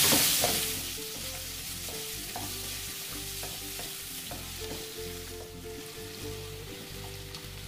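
Chopped onions sizzling in hot butter and oil. The sizzle is loud for the first second, then settles to a softer steady sizzle, with occasional clicks of the stirring spoon against the pan.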